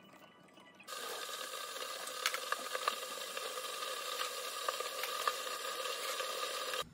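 Food sizzling in a hot frying pan, a steady hiss with scattered sharp pops and spits. It starts suddenly about a second in and cuts off abruptly near the end.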